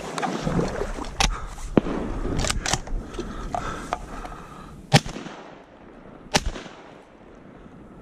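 Wading through shallow flood water along dry brush: water sloshing and stems rustling and scraping, with several sharp cracks and knocks. The rustling fades after about five seconds, and the loudest cracks come near the middle and about six seconds in.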